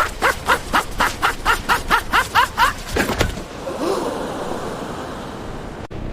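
A rapid run of about a dozen short pitched sounds, about four a second, then a steady rumbling noise of a moving subway car that cuts off suddenly near the end.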